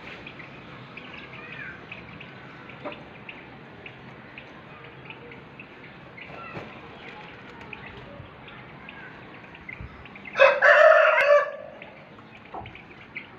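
Chicks peeping faintly, then about ten seconds in a loud crow from an Aseel rooster, about a second long.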